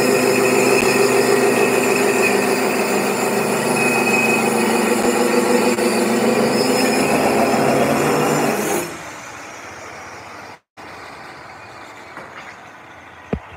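Handheld electric tile cutter (a small circular saw) cutting through a large floor tile with a loud, steady whine. The saw cuts off about nine seconds in, leaving only low background noise and a short click near the end.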